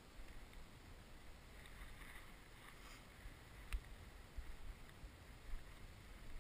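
Faint footsteps of a person walking through dry cut rapeseed stubble, irregular low thuds with rustling, and one sharp click a little past the middle.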